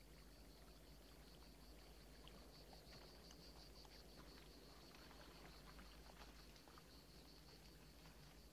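Near silence: faint room-tone-like hiss with a steady high-pitched whine and a few faint scattered ticks.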